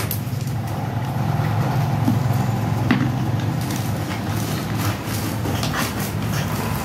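A steady low hum, like a motor running, under faint crinkles and taps as plastic wrappers are packed down into a plastic bottle with a bamboo stick to make an ecobrick.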